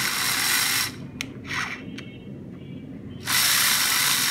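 Plastic toy construction vehicle's wheels and gearing whirring as it is run by hand, in two bursts of about a second each. The first stops about a second in and the second starts about three seconds in, with a few light clicks between them.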